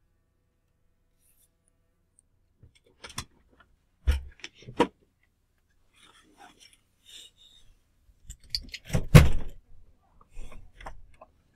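Scattered knocks and clicks close to the microphone, with faint rustling between them. The loudest is a thump about nine seconds in, and another comes about four seconds in.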